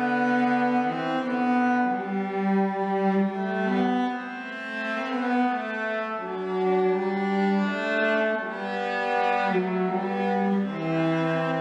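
Two cellos playing a traditional tune as a bowed duet in two parts, mostly held notes that change about once a second.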